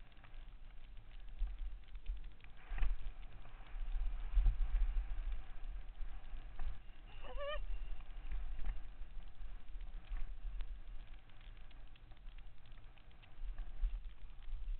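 Downhill mountain bike descending a rough dirt trail, heard close on a bike-mounted camera: a low rumble of wind on the microphone and tyres over the ground, with steady rattling clicks from the bike. About halfway through comes a brief wavering high note.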